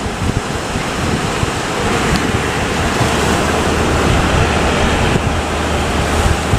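Heavy sea surf rushing onto the shore, a continuous noisy wash, with a low steady hum joining about halfway through.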